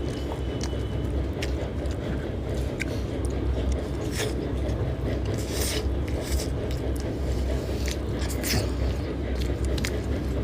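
Close-miked eating: scattered mouth clicks and crunchy chewing, over a steady low background hum.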